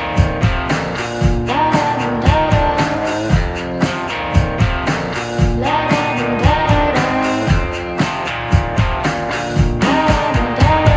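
A rock song with guitar, drums and a sung melody.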